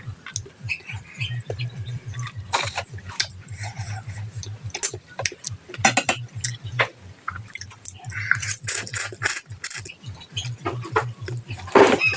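Close-up eating sounds: chewing and mouth noises, with repeated sharp clicks and clinks of utensils on a plate. A low steady hum runs underneath.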